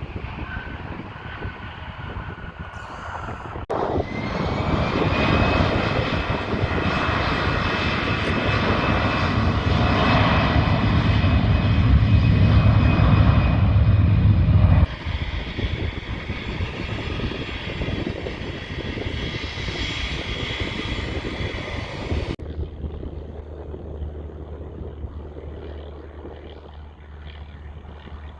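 Airplane engine noise, loud and dense, with a high whine that rises briefly about four seconds in. The sound changes abruptly several times, getting louder about four seconds in and dropping back sharply near the middle and again about three quarters through.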